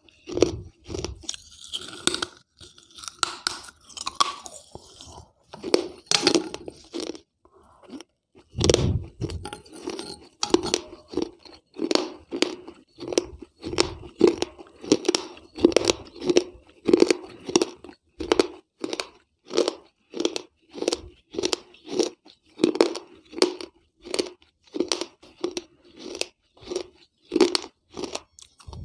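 Close-miked chewing and crunching of pieces of a water-soaked terracotta gullak (clay money pot), in a steady rhythm of about two crunches a second.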